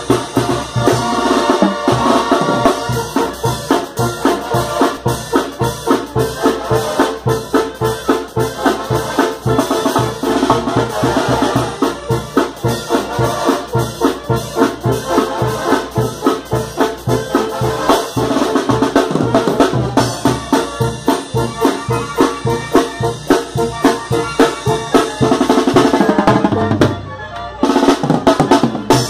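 Live Mexican banda music: the tarola player's snare drum, timbales and cymbals drive a fast, busy beat over sousaphone and brass. Near the end the band breaks off for a moment before the drums come back in.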